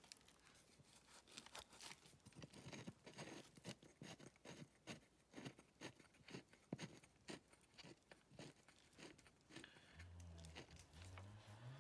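Faint, scattered clicks and rustles of hands handling the phone and fingering the engine's clutch cover, close to the microphone. A low hum starts near the end.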